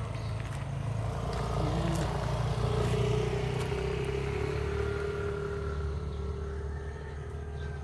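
A motor vehicle engine running with a steady low rumble and hum, getting a little louder about three seconds in and easing off toward the end.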